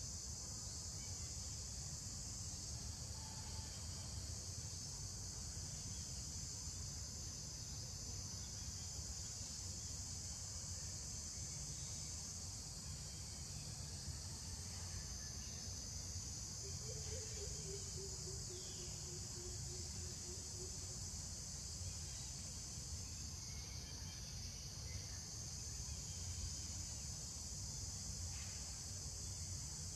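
Steady, unbroken high-pitched drone of an insect chorus, with a low rumble underneath.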